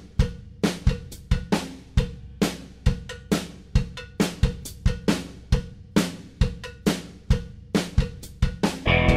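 Drum kit playing a solo beat: kick and snare strikes with cymbal and hi-hat, about two to three hits a second. Right at the end the rest of the music comes in.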